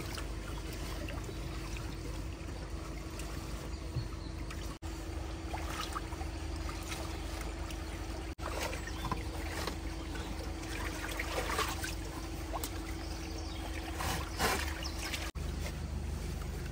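Floodwater running across a flooded road, with irregular splashing and a steady low hum underneath; the sound breaks off briefly three times.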